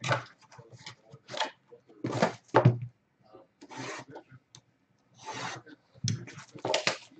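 Cardboard trading-card box and sealed card packs being handled, giving a series of short rubbing and scraping bursts with short gaps between them.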